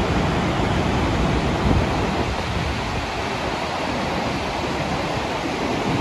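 Steady rushing of the Rhine Falls' water heard close up, a dense unbroken noise with no pitch.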